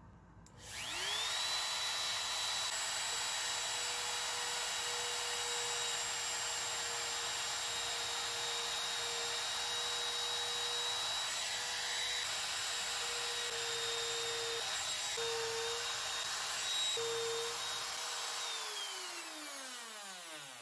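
Compact trim router switched on, spinning up to a steady high whine and running while it cuts shallow nut recesses into HDPE plastic sheet, with a few brief changes in pitch under load. Near the end it is switched off and winds down, its pitch falling.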